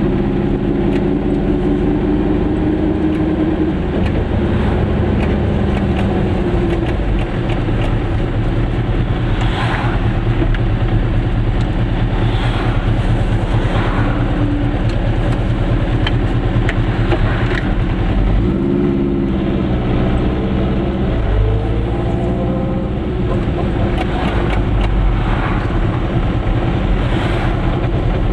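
Goggomobil's small air-cooled two-stroke twin engine running, heard from inside the car while driving, over steady road noise. The engine pitch drops a few seconds in and climbs again past the middle as the car slows and picks up speed through the gears.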